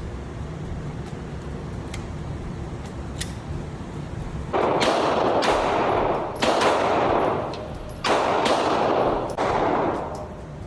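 Gunshots from 9mm firearms at a shooting range: about seven loud shots fired in quick runs, starting a little under halfway in, each with a long echoing tail. A few faint, distant shots come before them.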